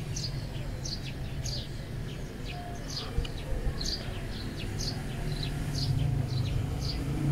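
Small birds chirping in the background, short high chirps coming about two to three times a second, over a steady low hum.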